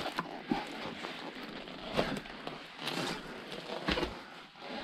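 Footsteps on concrete rubble, with irregular crunches and knocks a second or two apart.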